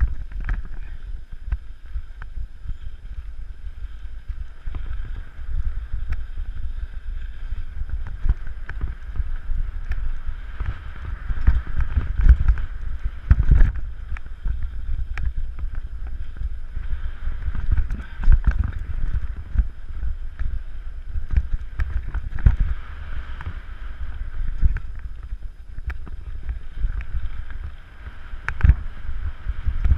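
Low rumbling noise of wind buffeting the microphone, broken by frequent knocks and jolts.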